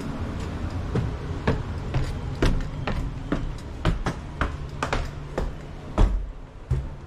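Footsteps, about two a second, over the low steady hum of the running gas furnace, which fades near the end.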